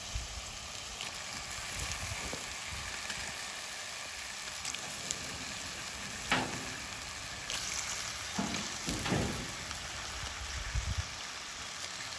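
Raw squid pieces sizzling and frying with onions and spices in a clay cooking pot, as a steady hiss. A few short knocks come through, the sharpest about halfway.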